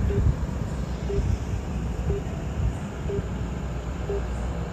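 Steady low outdoor rumble, with a faint short beep repeating about once a second from a phone on a call.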